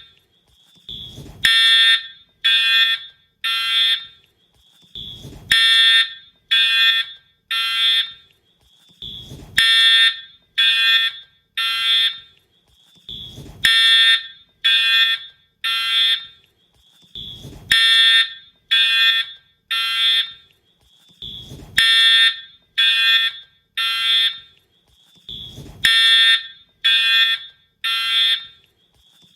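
A Wheelock-style fire alarm horn/strobe sounding in the temporal-3 evacuation pattern. It gives three short, shrill horn blasts, then a pause, and the group repeats about every four seconds. A brief low thump comes just before each group of blasts.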